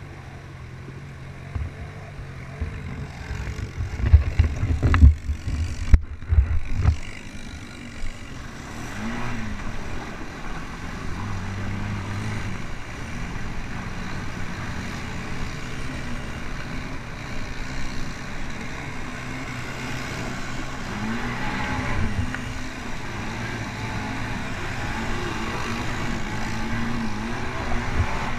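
Quad bike (ATV) engine running up close, revving up and down as it drives through a shallow river, with water splashing. A few loud knocks about four to seven seconds in.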